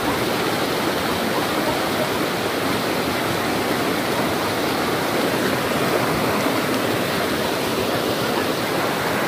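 Whitewater of a fast, rocky mountain stream rushing steadily over boulders.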